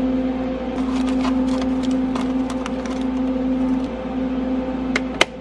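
Steady electrical hum of an open refrigerated drink vending machine: one low tone with a higher overtone. Light clicks and rustles of paper bills being handled, with a sharper click near the end.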